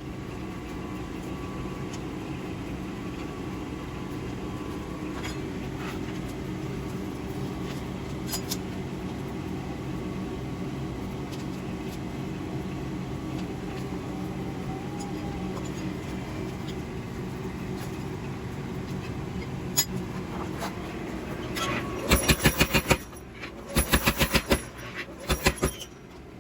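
A steady machine hum, then near the end two short runs of rapid power hammer blows, fullering a second groove into the handle of a 1/2-inch square steel bar.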